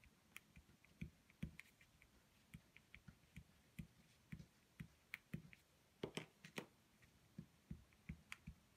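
Beeswax crayon on paper in short colouring strokes: a quiet, irregular run of soft clicks and taps, roughly two a second.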